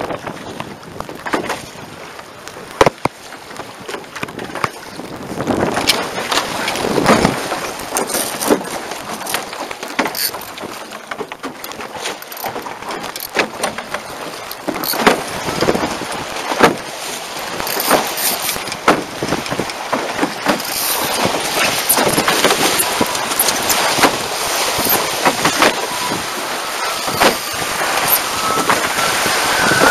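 Water rushing and splashing along the hulls of an A-Class catamaran under sail, with wind buffeting the boat-mounted microphone. Scattered sharp knocks and taps run through it, and the rush grows louder in the second half.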